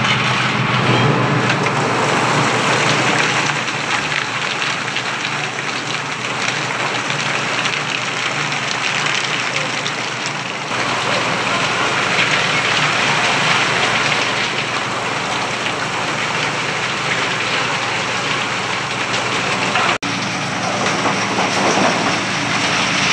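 Concrete mixer truck's engine running under a steady rushing, rain-like hiss, typical of concrete paving work. The sound changes abruptly twice.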